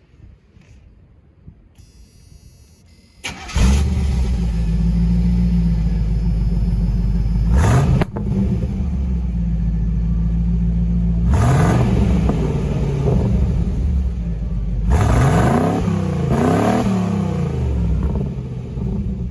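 1985 Camaro Z28's 305 V8 starting about three seconds in and idling through a Magnaflow 3-inch stainless cat-back exhaust with a single muffler, with short revs of the engine near eight seconds, around twelve seconds and twice more around fifteen to seventeen seconds.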